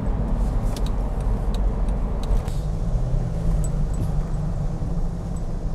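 Car on the move: a steady low rumble of engine and road noise, with a few light clicks and rattles in the first half.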